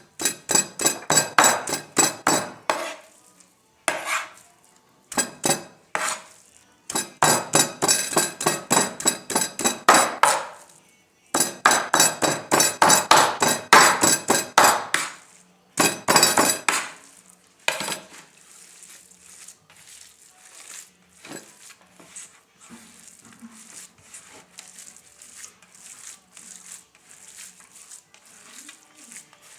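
Rapid, regular knocks of a metal kitchen utensil, about four or five a second, in runs of a few seconds with short pauses. About eighteen seconds in they give way to faint, scattered clicks.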